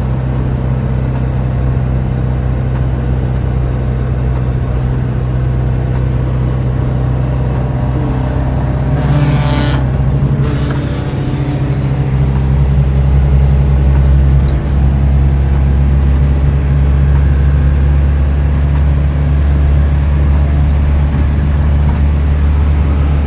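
In-cabin engine and road noise of a Toyota Corolla DX (KE70) with its 4K engine, cruising at highway speed in a steady low drone. About nine seconds in there is a short rush of hiss, and after it the low engine drone grows heavier.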